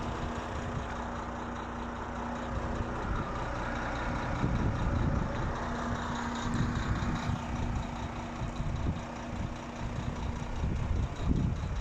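Wind buffeting the microphone in irregular gusts, over a steady low hum that fades out about six seconds in.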